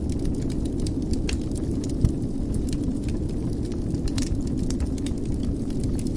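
Wood fire in a fireplace crackling, with irregular sharp pops over a steady low rumble; one louder pop about two seconds in.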